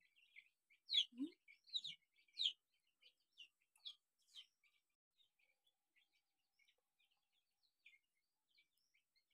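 Small birds chirping: a cluster of louder, quick chirps in the first few seconds, then fainter scattered chirps.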